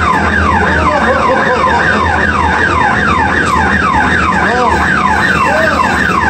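Electronic alarm or siren-like warning sound, a yelping tone sweeping down over and over at about three sweeps a second.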